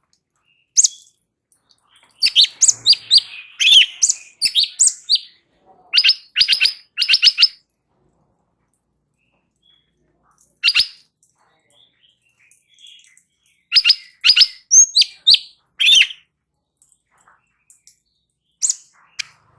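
Cucak cungkok (light-vented bulbul) singing loud bursts of quick, high chirping notes. The phrases come in groups, one of them a run of four alike notes, separated by pauses of one to a few seconds.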